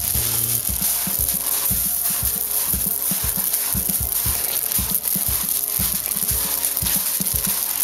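Footsteps crunching on a shingle beach, with uneven soft thuds a few times a second over a steady high hiss.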